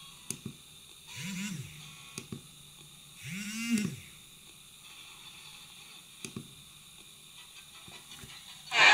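Quiet clicks of a mobile phone's keypad being pressed, with two short low sounds that rise and then fall in pitch, about a second and a half in and again near the middle.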